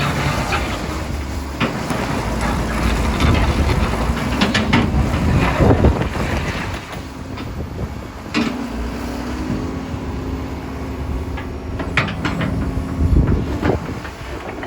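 Kobelco SK200SR hydraulic excavator working: its diesel engine runs steadily with scattered metallic knocks and clanks, and a steadier pitched drone comes in a little past halfway.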